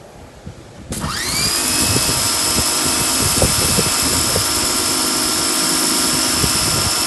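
Sun Joe SPX3500 electric pressure washer starting about a second in, its motor whining up in pitch and then running steadily, with the hiss of the turbo nozzle spraying concrete.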